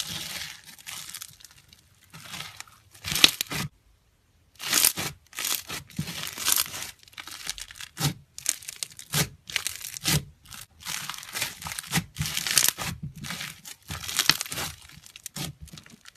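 Floam slime, slime packed with tiny foam beads, squeezed and pressed by hand, its beads crackling and crunching in many irregular bursts, with a short pause about four seconds in.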